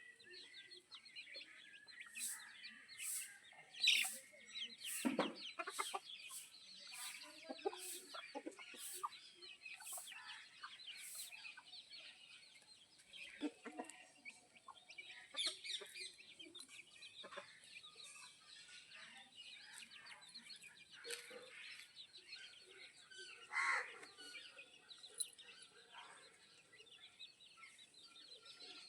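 Chickens clucking and chirping: many short, scattered calls overlapping one another, a few of them louder.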